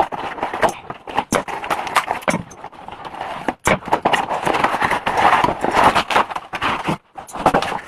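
Ring light packaging being unwrapped and handled: crackling, rustling packaging with many sharp clicks and knocks.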